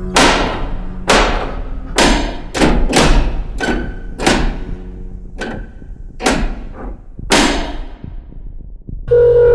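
A series of about ten heavy impacts at uneven intervals, each followed by a reverberant tail that dies away; the last comes a little past seven seconds in.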